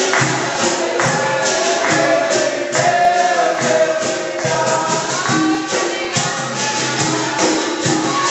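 Capoeira roda music: berimbaus, a tambourine (pandeiro) and an atabaque drum keep a steady rhythm while a group of voices sings a chorus.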